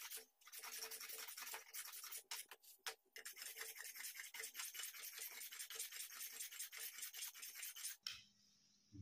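Quick repeated scraping strokes of a hand tool along the corner edges of a babul-wood plane body, rounding them off. The strokes stop about eight seconds in.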